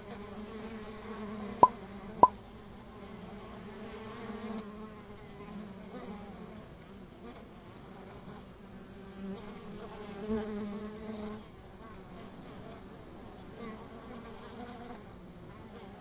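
Many honeybees buzzing around a hive: a steady, wavering drone. Two sharp clicks come about a second and a half and two seconds in.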